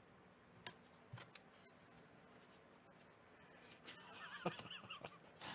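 Mostly near silence, with a few faint clicks early on, then a run of short, faint squeaks and clicks in the last second and a half.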